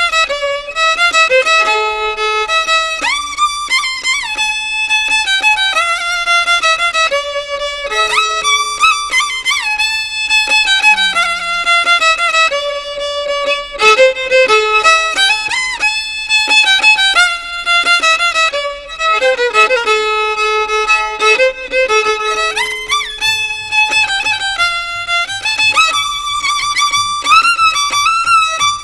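Violin playing a lively Andean melody, quick runs of notes with slides between them.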